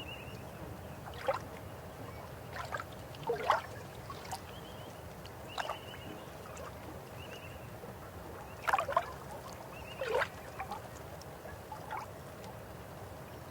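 River water flowing steadily, with irregular louder gurgles and splashes, the loudest about three and a half and nine seconds in. Faint short high chirps come and go over it.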